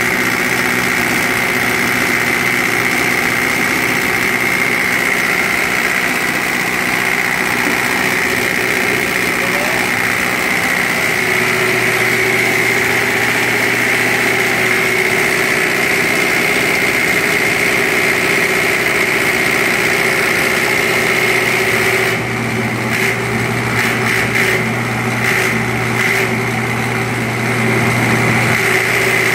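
Diesel injection pump test bench running, its motor turning an Isuzu 4HG1 four-cylinder inline injection pump during calibration: a steady mechanical hum and whine. A deeper hum joins about eleven seconds in, and the higher hiss dips briefly several times near the end.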